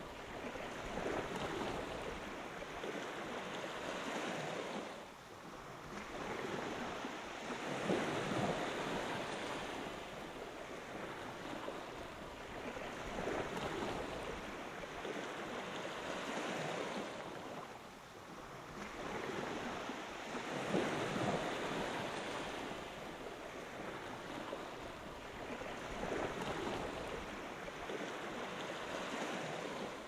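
Small surf waves breaking gently and washing up a sandy beach. The hiss of the wash swells and eases again every few seconds.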